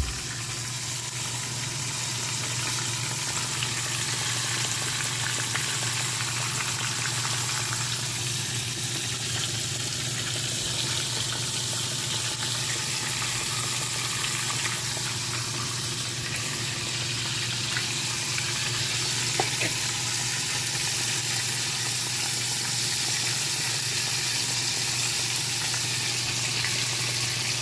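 Cornmeal-coated spotted bass fillets frying in hot oil: a steady sizzle, with a steady low hum underneath.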